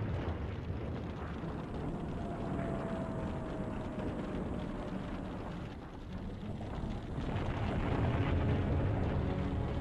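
Steady rumbling noise of warplane engines, with a faint falling whine a few seconds in; the rumble dips about six seconds in and swells again toward the end.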